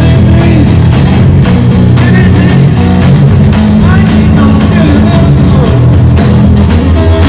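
Live rock music played loud: a guitar over a steady drum beat of about two hits a second.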